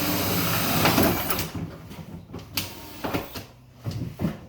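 Power drill running with a 1.5-inch bit against a plastic bucket, stopping about a second and a half in. A few short knocks and clatters of the drill and bucket being handled follow.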